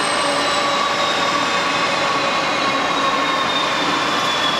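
Pacific National freight train's NR and G class diesel-electric locomotives passing close by. Their engines run with a steady heavy rumble and rail noise, while thin high whines slowly drift down in pitch.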